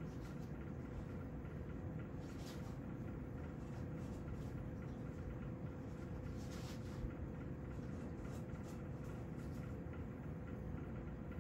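Quiet room tone: a steady low hum with a faint, constant tone in it, and a couple of soft, faint rustles.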